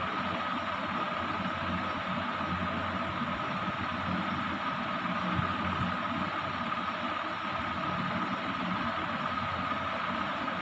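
Steady whirring drone of a running electric fan, with a constant high whine in it.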